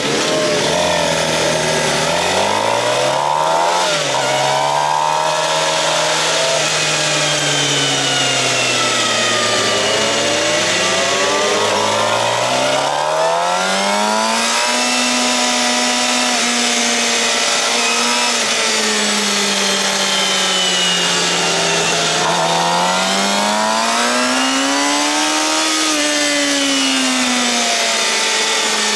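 Suzuki GSX-R750 inline-four with a Yoshimura R-11 slip-on exhaust, heard from the rider's seat, pulling away and running. The revs climb, drop at a gear change about four seconds in and sag at low speed, then climb steeply about twelve seconds in as the bike accelerates onto the track, and rise and fall again near the end.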